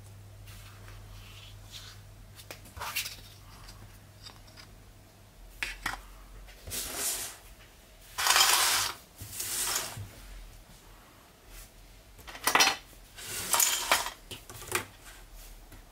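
Plastic LEGO Technic pieces clicking as they are set down one by one on a tabletop, then rattling and scraping in several longer, louder bursts as handfuls are swept across the surface by hand.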